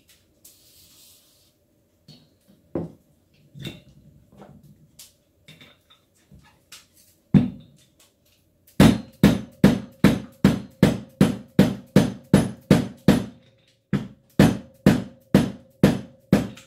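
A short hiss of spray oil, then a mallet beating on a large socket used as a drift to drive a bearing onto a drill-press spindle: a long run of even blows, about three a second, with a short pause about two-thirds of the way in, and a faint metallic ring under the blows.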